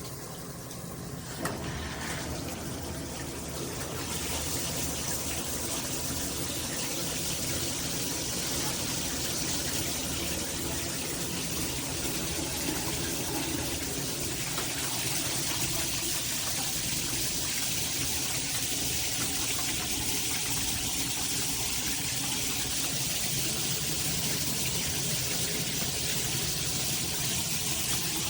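Shower head spraying water in a steady hiss that gets louder about a second and a half in and again about four seconds in, then stops at the very end.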